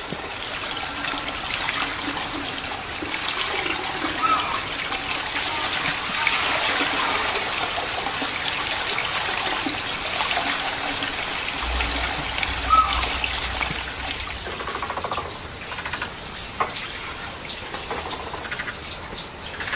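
Running water trickling and splashing steadily, with two short high squeaks and a low hum coming in about twelve seconds in.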